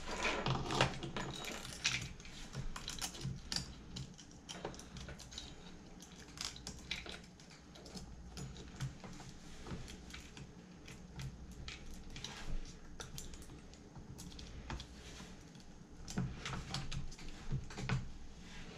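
Scattered light metal clicks and rattles of a 1/4-pitch saw chain and a Stihl 10-inch bar being handled and fitted onto an Echo CS-2511T top-handle chainsaw, busiest near the start and again near the end.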